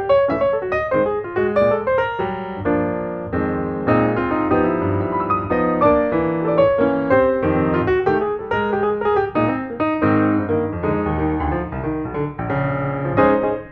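Background piano music: a solo piano playing a flowing run of notes.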